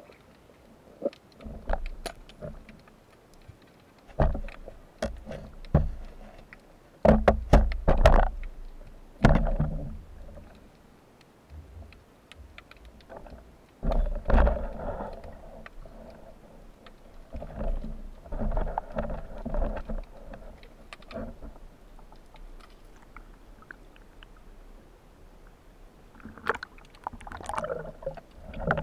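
Muffled underwater sound picked up through a waterproof camera housing: irregular knocks and thuds, with several louder surges of rushing, gurgling water lasting a second or two each.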